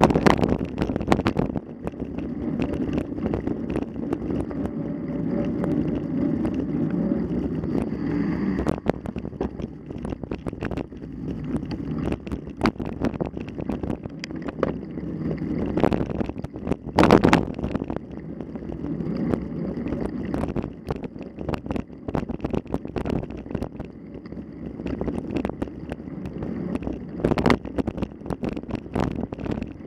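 Rushing wind noise on the microphone with frequent knocks and rattles, a few louder jolts near the middle and end.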